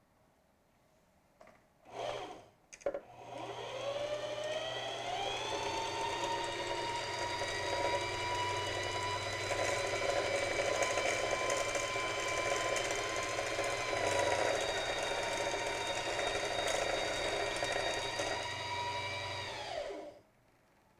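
Singer 4423 sewing machine's motor driving the bobbin winder: two brief starts, then it spins up to a steady high-pitched whir for about fifteen seconds and slows to a stop near the end as the bobbin finishes winding.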